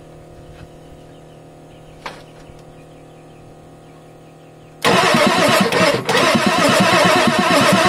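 Low steady hum of the electric fuel pump, then about five seconds in the Ford 6.9L IDI diesel is cranked on its starter, turning over in fast even pulses with its injector lines cracked open to push air and fuel through the new injection pump.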